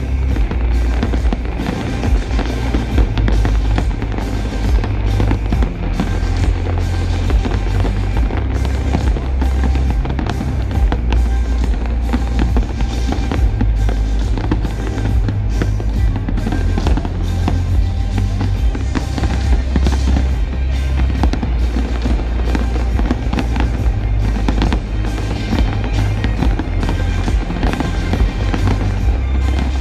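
Fireworks bursting and crackling in a dense, continuous barrage, mixed with loud music that has a heavy bass.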